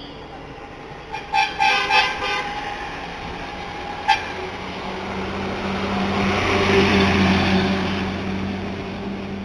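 Several short vehicle horn honks about a second in, one more near four seconds, then a motor vehicle passing, its engine hum swelling and fading.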